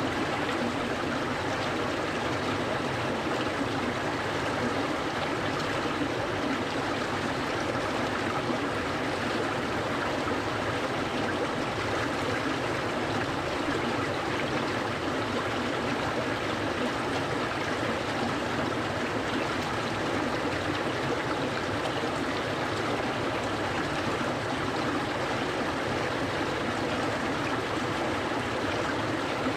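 Clear, cold-water stream flowing steadily, an even rushing and trickling with no breaks or changes.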